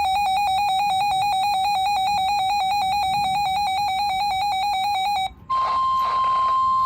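A weather radio receiver's built-in alarm beeping rapidly, about ten pulses a second, cuts off about five seconds in. A moment later the steady 1050 Hz NOAA Weather Radio warning tone sounds, the signal that a warning message is about to be read.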